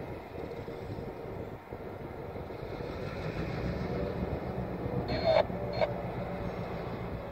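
Distant EMD SD9 diesel-electric locomotives, 16-cylinder EMD 567 engines, rumbling steadily while switching cars in the yard. The low rumble swells a little from about three seconds in. Two brief, higher-pitched sounds come close together about five seconds in.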